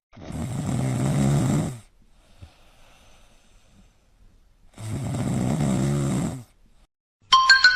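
Snoring: two long snores, each about a second and a half, some three seconds apart.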